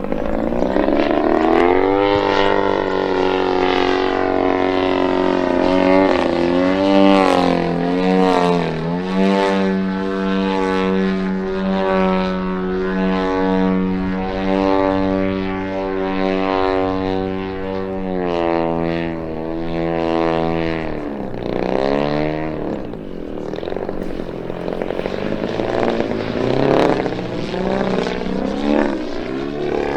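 A giant-scale RC Extreme Flight Yak 54's 120cc DA twin-cylinder two-stroke petrol engine and propeller running hard during aerobatic flight. The pitch rises and falls with the throttle and the plane's passes, holds steady for a stretch, then dips sharply about two-thirds of the way through before climbing again.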